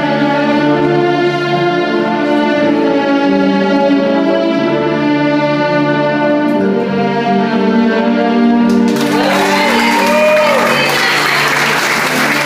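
Orchestral waltz music with strings, slow held chords. About nine seconds in, the audience breaks into applause and whooping cheers over the close of the music.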